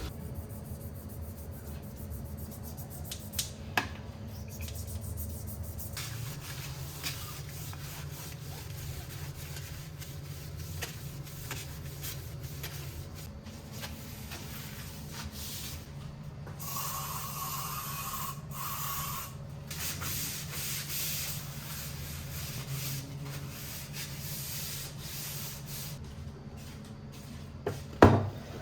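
Repeated rubbing and scraping on a surface, with scattered light clicks over a steady low hum. A louder rush of noise lasts a few seconds past the middle, and a sharp knock comes near the end.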